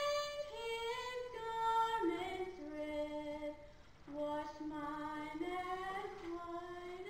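A woman singing a slow melody into a microphone, holding long notes and sliding between them, with a brief breath pause just before the fourth second.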